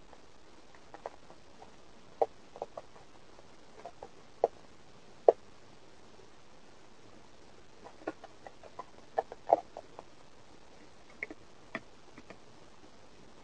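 A cat eating dry food: scattered, irregular crunches and clicks in short clusters, with a pause of about two seconds in the middle.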